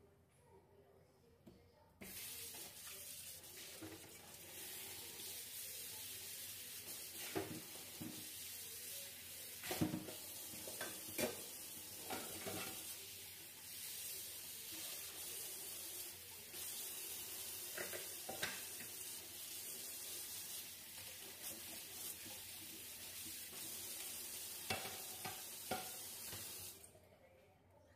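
Steady sizzling hiss from a lidded pan of bihon rice noodles cooking down in broth, with scattered sharp pops and clicks. The sizzle starts abruptly about two seconds in and cuts off shortly before the end.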